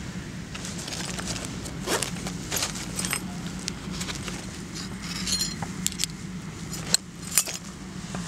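Rummaging in a gear pouch: small hard items click and rattle against each other, with a brief metallic jingle about five seconds in and the sharpest clicks near the end.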